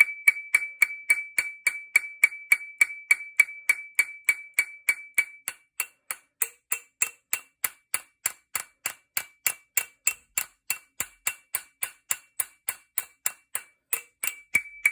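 Small hammer tapping steel in a quick, even rhythm of about three and a half strikes a second, each blow ringing briefly; a tone in the ring shifts higher about halfway through. The blows are percussion on a shotgun's rust-seized side-plate screw, driving penetrating fluid in to break the rust and free it.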